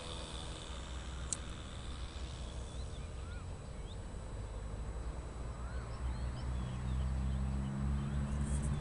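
Faint, distant drone of an RC model airplane's .46 glow engine, growing a little louder in the last couple of seconds, with a few short bird chirps over it.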